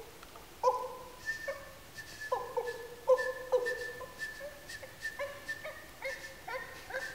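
Two men's improvised wordless vocalising: short, animal-like pitched calls and squeaks that jump between a few pitches, over a thin high tone held underneath. Near the end the calls quicken into gliding chirps as the performers break into laughter.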